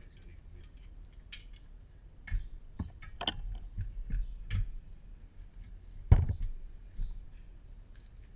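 Irregular handling noises from a shoulder-bag strap and its fittings being adjusted: scattered clicks, knocks and rustles, with a sharp knock about six seconds in.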